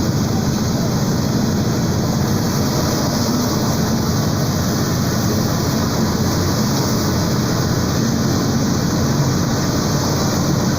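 Truck diesel engine running steadily with the engine brake on, holding the truck back on a long steep downhill in a low gear.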